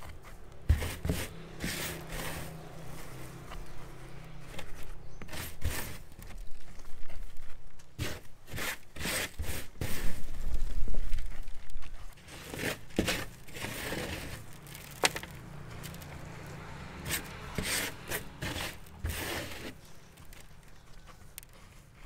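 Hands scooping and pressing dry, chaffy potting mix into a plastic pot around a plant's roots: irregular rustling, crunching and scraping, loudest about halfway through.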